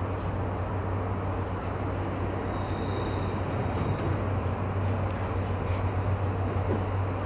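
JR East E235 series electric train running on the line, heard from inside the front cab: a steady running noise of wheels on rail with a low hum underneath.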